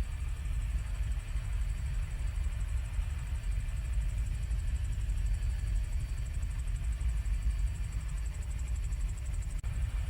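Helicopter noise: a steady low rumble of engine and rotor, with a faint high whine above it. It drops out for an instant near the end.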